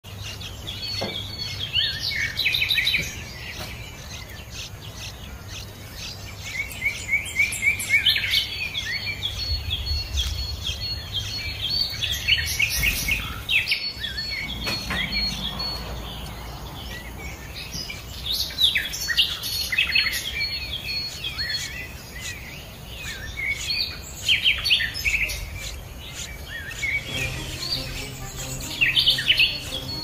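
Small songbirds chirping: bursts of quick, high calls every few seconds, with quieter chirping between.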